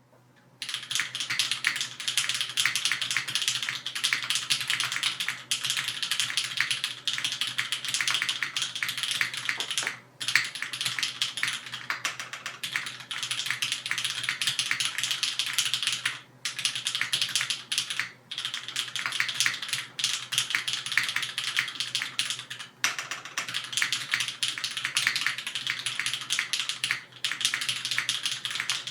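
Fast, continuous typing on a LifeZone CLS mechanical keyboard with lubed, filmed, retooled Cherry MX Black linear switches on an aluminium plate under GMK keycaps. The keystrokes start about half a second in and run as a dense clatter, broken by a few brief pauses.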